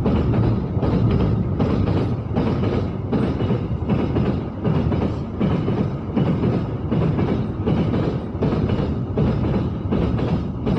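Container freight train rolling past close by, its wagon wheels clacking over the rail joints in a steady repeating rhythm.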